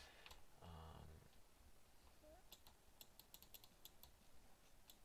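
Faint, quick clicking of computer keys, about a dozen clicks in under two seconds past the middle, after a brief low vocal murmur near the start.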